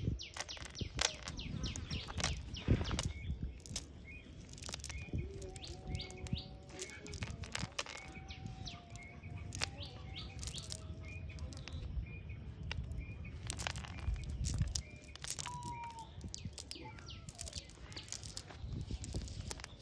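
Frequent sharp clicks and rustles as a cast net is pulled about and small fish are picked out of it on wet ground, with birds chirping faintly behind.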